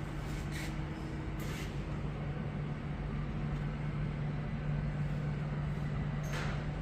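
Tesla Model 3 front suspension creaking in three short squeaks, about half a second in, about a second and a half in and near the end, over a steady low hum. The creak is put down to a front ball joint with water in it.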